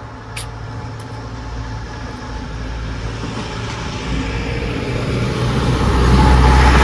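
A motor vehicle approaching, its engine hum and road noise growing steadily louder and loudest near the end.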